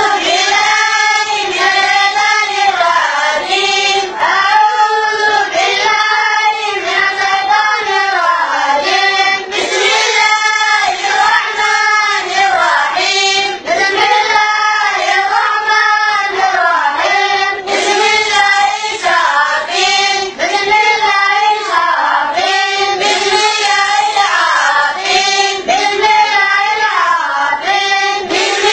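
A group of children chanting together in unison, a rising-and-falling line repeated phrase after phrase.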